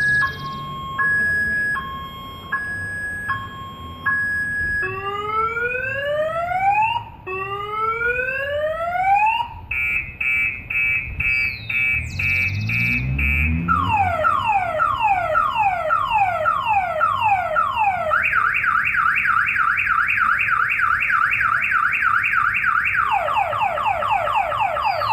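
Car alarm siren cycling through its tone patterns: an alternating two-tone beep, then slow rising whoops, a burst of rapid chirps, fast falling sweeps, a fast warble, and the falling sweeps again near the end.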